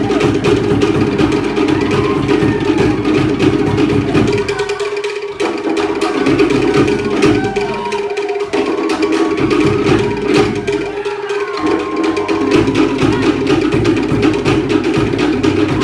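Ensemble of wooden slit log drums played in a fast, dense rhythm, with a large bass drum underneath. The low drumming drops out briefly a few times, and faint calls or voices rise over the beat in the middle.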